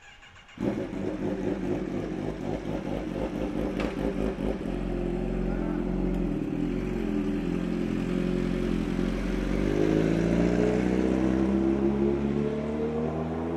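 A motor vehicle's engine running close by, comes in suddenly about half a second in, holds a steady low hum, then rises in pitch over the last few seconds as it speeds up.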